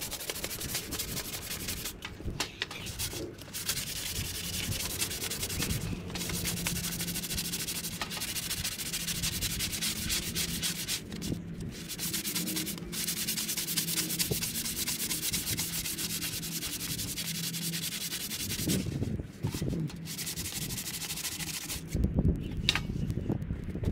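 Hand sanding a bare wooden walking stick with sandpaper: a steady scratchy rubbing, broken by short pauses between passes.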